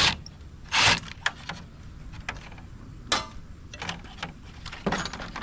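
Irregular clicks, ticks and brief scrapes of a screw being taken out and plastic and metal printer parts being handled. One short scrape comes just before a second in and another about three seconds in.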